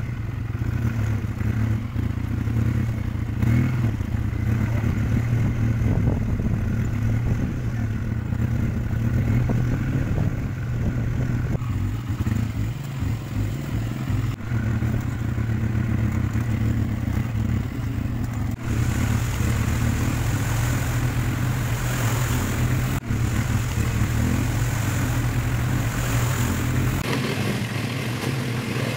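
Quad bike (ATV) engine running steadily at low speed, a continuous low hum, with a brighter hiss over it in the later part.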